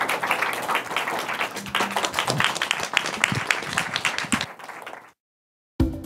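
Audience applauding, the clapping dying away about five seconds in. After a moment of silence, a percussive jingle begins right at the end.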